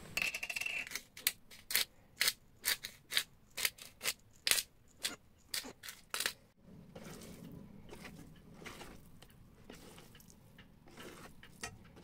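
Pepper mill grinding black pepper in short crunchy twists, about two a second, for about six seconds, then a softer, steady rustle.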